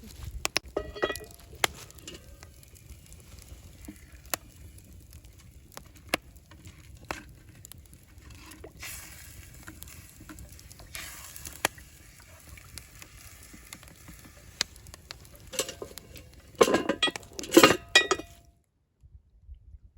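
Camp cooking: metal utensils and cookware clinking, knocking and scraping, with a sizzling hiss at times. A burst of louder knocks comes near the end, and the sound then cuts off abruptly.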